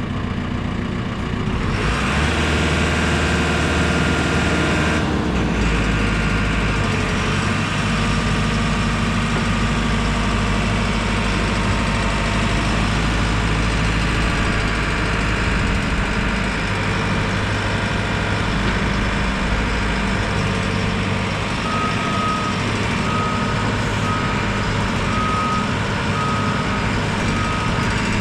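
JCB 4CX backhoe loader's diesel engine running, picking up revs about two seconds in and then holding steady. Near the end its reversing alarm starts beeping steadily, about once a second, as the machine backs up.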